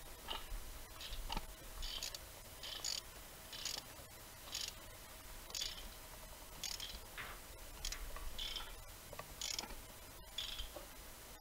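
Hand ratchet wrench clicking in short bursts, a little over one a second. Each burst is the pawl ratcheting on a back-stroke as a spark plug is tightened into the cylinder head.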